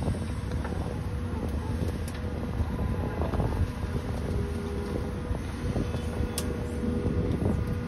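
Steady low rumble of distant engine-driven machinery with a faint held hum above it, and a few light clicks.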